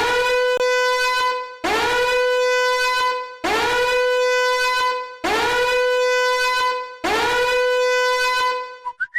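A horn-like sampled sound effect played five times in a row, about every 1.8 seconds. Each blast scoops up in pitch at the start, then holds one steady note for about a second and a half.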